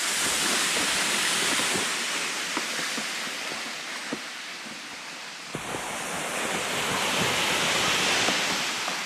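Plastic sled hull sliding over snow with footsteps crunching in deep snow: a steady hiss that swells and eases, with faint crunches through it.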